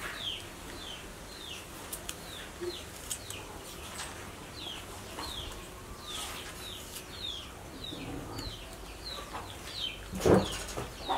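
A bird peeping over and over, about twice a second, each call a short high chirp that falls in pitch. A louder, lower call comes near the end.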